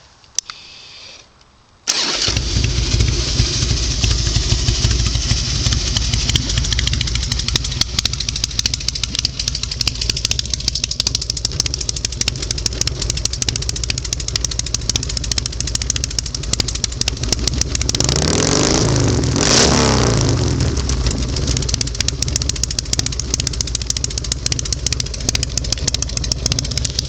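2000 Harley-Davidson Heritage Springer's Twin Cam 88B V-twin, through 2.5-inch Rush true-dual exhaust pipes, firing up about two seconds in and settling to a steady idle. Around eighteen seconds in the throttle is blipped once, the revs rising and falling back to idle.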